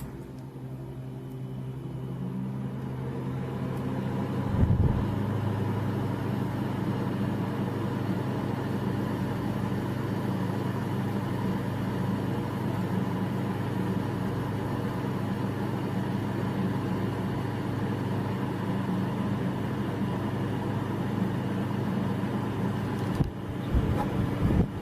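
Arctic King 5,000 BTU window air conditioner switched on, its fan speeding up and growing louder over the first few seconds. A brief low thump about five seconds in, then a steady hum with the fan blowing.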